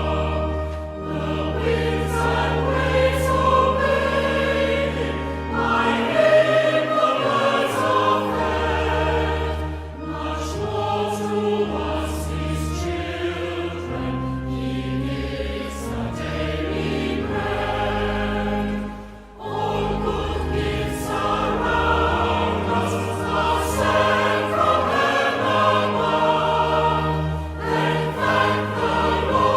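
A choir singing a hymn over sustained low accompaniment notes, with a brief pause between phrases about two-thirds of the way through.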